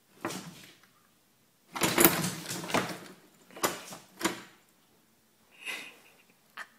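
A small dog pouncing on and batting a toilet-paper roll on a hard floor: a string of short scuffles and knocks, the loudest cluster about two seconds in.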